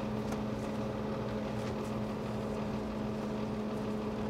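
Steady machine hum with a strong low tone, with a few faint soft rustles as a bamboo sushi mat is pressed around a roll.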